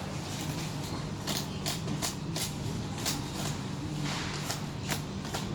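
Irregular light clacks and scrapes of goods being handled, over a steady low engine hum.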